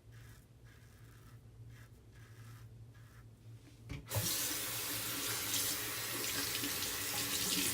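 Faint, regular scraping strokes of a safety razor. About four seconds in, a bathroom tap is turned on and water runs steadily into the sink as the razor is rinsed under it.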